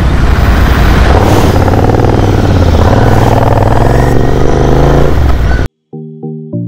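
Motorcycle engine pulling away and accelerating, its pitch rising steadily. Near the end it cuts off suddenly into electronic music with plucked notes.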